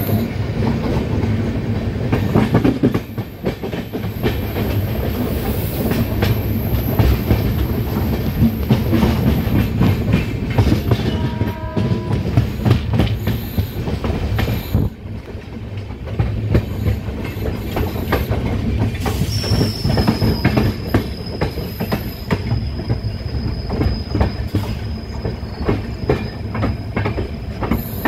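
Indian express train's coaches running on jointed track and over points, heard from on board: a steady rumble with rapid wheel clatter. About nineteen seconds in, a high, steady wheel squeal starts and holds as the train runs into the station.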